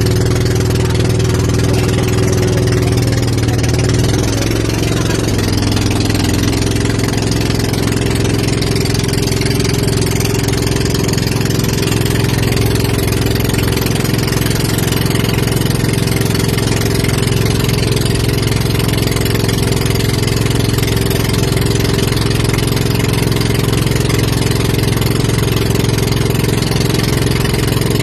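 Passenger boat's engine running steadily and loudly, its pitch dropping a little about four seconds in, with a hiss of water and wind over it.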